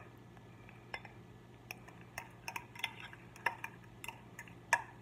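Metal fork clicking lightly against a glass mixing bowl as thick deviled-egg filling is stirred, about ten scattered, irregular taps, over a faint steady low hum.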